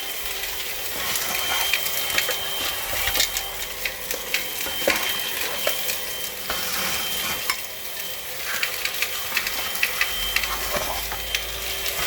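Hoover Onepwr Blade cordless stick vacuum running with its crevice tool, a steady motor and airflow hiss, while loose screws and small debris are sucked up and clatter through the tool in many quick clicks and rattles.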